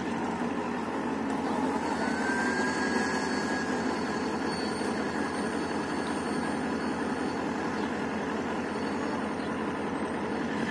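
A diesel locomotive idles steadily while standing at the platform. A faint rising whine can be heard about two seconds in.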